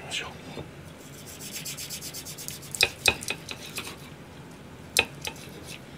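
A sashimi knife sawing through grilled chicken thigh, a quiet rasping of the blade through the crisp skin. A few sharp clicks come about three seconds in and again near five seconds.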